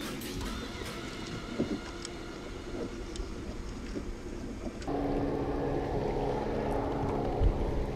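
Electric trolling motor humming steadily on a bass boat, with wind on the microphone. The hum becomes louder and steadier about five seconds in.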